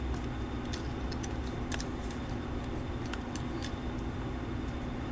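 Faint clicks and taps of a small plastic toy motorcycle being handled in the fingers, a few scattered ticks over a steady low hum.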